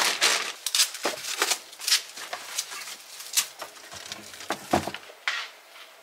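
Plastic-wrapped frozen food packets crinkling and knocking lightly as they are handled and stacked into a freezer drawer, in irregular bursts with a few sharper clicks.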